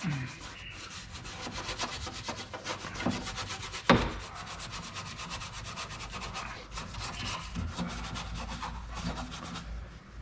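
Small brush scrubbing the bare inner sheet metal of a Volkswagen Gol G3 door in rapid back-and-forth strokes, lifting caked dirt and dust. One sharp knock about four seconds in.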